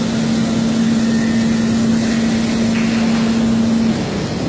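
Milking parlour machinery running: a steady mechanical noise with a low, even hum that cuts off about four seconds in.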